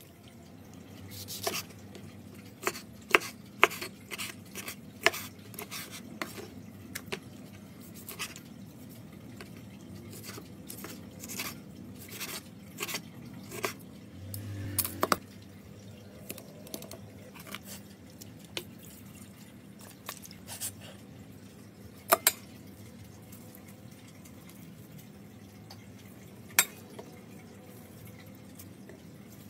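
Kitchen food preparation: scattered sharp clinks and taps of a spoon and utensils against a metal pot and bowl, with liquid dripping. The clinks come thick in the first half, with a dull thump midway, then thin out to a few isolated ones.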